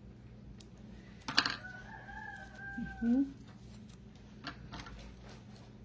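A sharp click about a second and a half in, then a rooster crowing once in the background: one held call of about a second and a half that drops in pitch at the end. A few faint clicks follow near the end.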